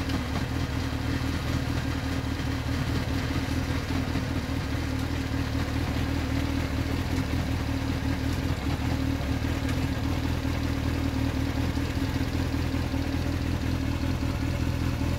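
Kawasaki ZX-6R four-cylinder engine idling steadily through a MIVV GP slip-on silencer.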